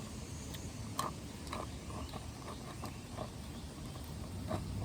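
Slime being mixed and squished by hand: irregular sticky clicks and small pops, over a steady low outdoor rumble.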